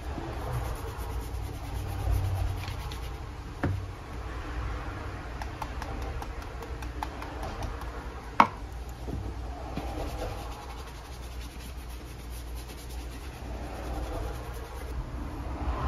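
Wool dauber scrubbing over the leather of a Red Wing boot, a steady rubbing and scratching. There is a knock a little under four seconds in and a single sharp click a little past eight seconds.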